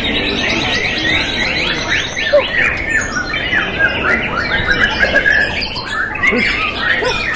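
Many young white-rumped shamas (murai batu) singing at once from their hanging cages, a dense overlapping chorus of rapid sweeping notes and rattling phrases.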